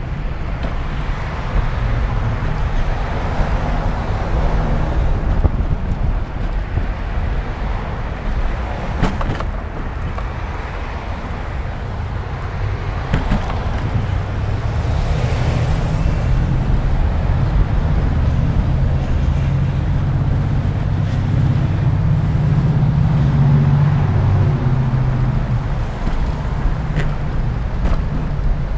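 Road traffic on a busy street, cars driving past, with a steady low rumble and wind noise on a moving microphone. The rumble grows stronger in the second half.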